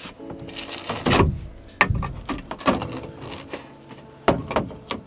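A claw hammer prying at and knocking a steel support beam on a Ram Promaster van's sheet-metal wall, loosening it from the foam sealant that still holds it: a series of irregular metal knocks and clanks with brief ringing of the sheet metal between them.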